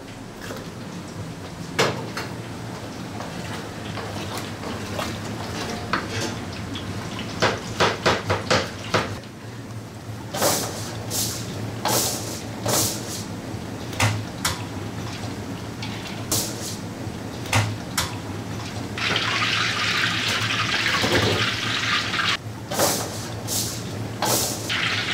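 Metal kitchen utensils clinking and knocking against steel pans and bowls, over a steady low hum. A loud hiss starts suddenly about three-quarters of the way through, lasts about three seconds, stops, and starts again near the end.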